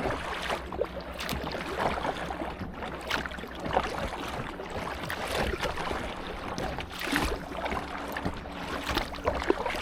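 Kayak paddle dipping and splashing in uneven strokes, with water sloshing against the inflatable kayak's hull. A faint steady low hum runs underneath.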